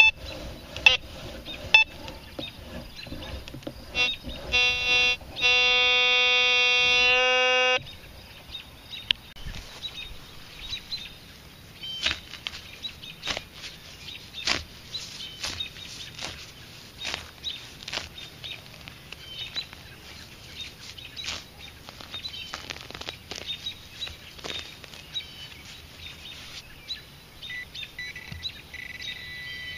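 Metal detector speaker giving a steady, buzzy beep for about two seconds, then a hand digger cutting and scraping into grass turf and soil, many short sharp chops and scrapes.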